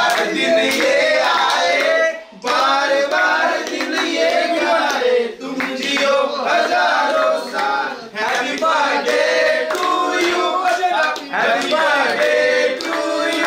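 Several voices singing together, with hand clapping.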